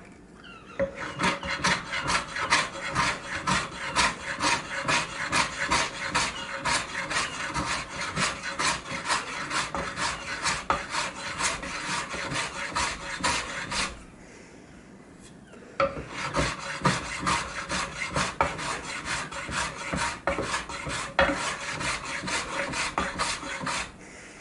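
Wood being worked by hand with an abrasive: quick, back-and-forth rasping strokes in two long runs, broken by a pause of about two seconds midway.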